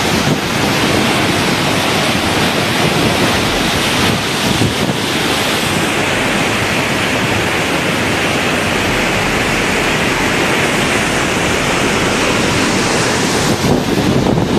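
Muddy floodwater rushing in a fast, churning torrent: a loud, steady rush of water, with wind buffeting the microphone.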